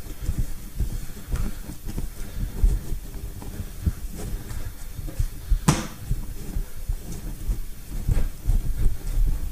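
Pastry dough being kneaded by hand on a wooden chopping board: repeated dull, irregular thumps as the palms press and push the dough into the board, with one sharper knock about halfway through.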